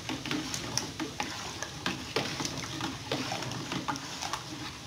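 A long metal spoon stirring a thick, starch-thickened sugar mixture in an aluminium cooking pot: the liquid swishes, and the spoon clinks and scrapes against the pot at irregular moments, several times a second.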